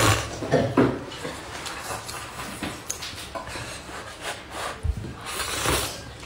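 A person slurping long noodles out of a cup of spicy broth: short sucking slurps near the start and a longer hissing slurp near the end.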